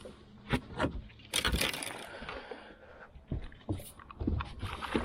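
Knocks and scrapes of handling in a boat: several sharp knocks, with a longer, louder scrape about one and a half seconds in.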